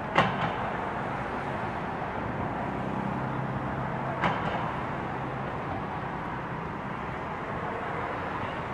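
Two sharp thuds of a soccer ball being kicked, one right at the start and a softer one about four seconds in, over a steady background rumble.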